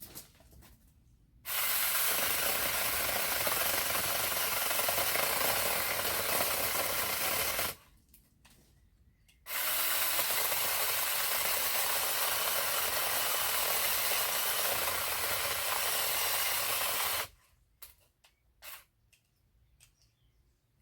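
Small 15 cm cordless chainsaw running and cutting wood, in two long runs of about six and eight seconds that each start and stop abruptly, with a few light knocks in the pauses.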